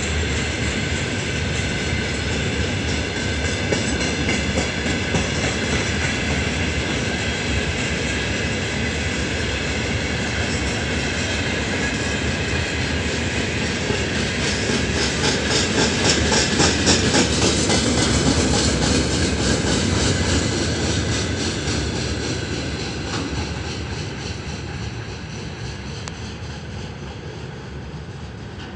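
Freight train of open gondola wagons rolling past, its wheels rumbling and clattering over the rail joints. The clatter is loudest about halfway through, then fades as the train draws away.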